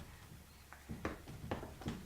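A few faint, short clicks and smacks from a baby's mouth and lips as he plays with a mouthful of food.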